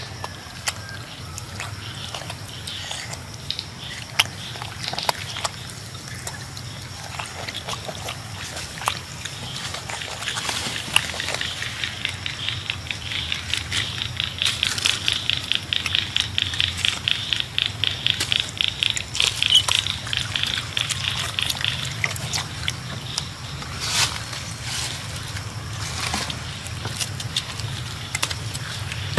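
Macaques eating fruit close by, with scattered wet smacks and clicks of chewing and handling over a low steady hum. From about ten seconds in until about twenty-two seconds, a fast, high-pitched pulsing call repeats about five times a second.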